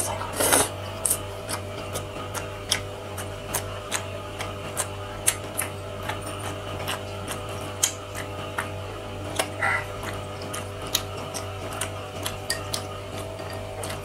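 Close-miked eating: wet chewing and lip-smacking clicks, irregular, a few a second, with a longer, louder slurp as a spoonful goes in just after the start, over a steady low hum.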